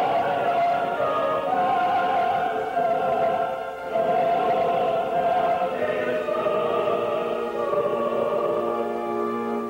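Choir singing a slow sacred piece in long held chords, with orchestral accompaniment. The sound dips briefly between phrases a little before halfway, then a new chord begins.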